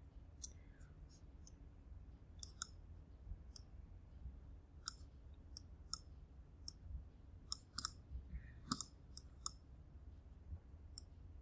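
Faint, irregular computer mouse clicks, about fifteen of them and some in quick pairs, as anchor points are selected and dragged, over a low steady hum.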